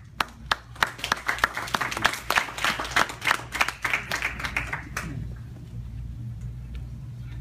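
Small audience applauding: a few separate claps at first, building to dense clapping that dies away about five seconds in.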